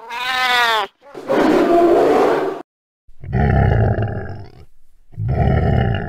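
Four animal calls in a row: a short pitched cry that wavers at the start, then three roars, the last two deeper and louder at the bottom, like big-cat roars.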